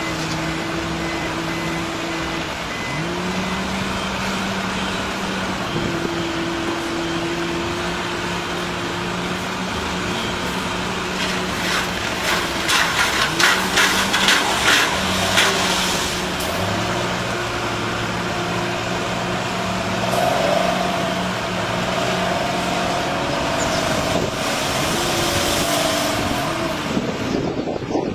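Heavy diesel construction machinery running, its engine note stepping up and down as it works, with a burst of rapid clattering about halfway through.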